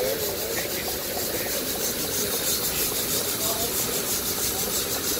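Scale-model Corliss steam engine running: a steady hiss with a fast, even pulsing beat, and faint voices behind.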